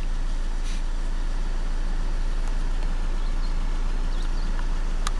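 Steady, even rumble of a waiting vehicle's engine idling, with no distinct events.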